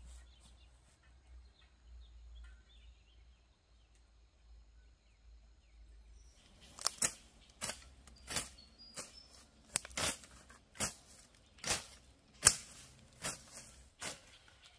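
Faint outdoor background, then, from about halfway through, a run of sharp chops, roughly one or two a second, of a hand tool cutting through grass and weeds.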